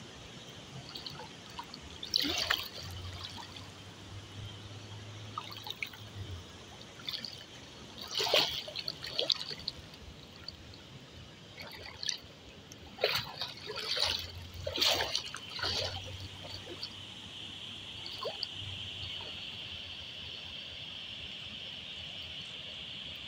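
Shallow river water splashing and sloshing in several bursts as someone wades through it. A steady high hiss grows louder near the end.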